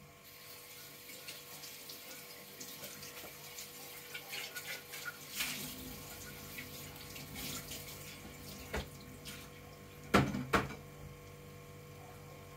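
A cat scrabbling and rustling on a woven rug, with scattered scratching sounds, then two sharp thumps close together about ten seconds in.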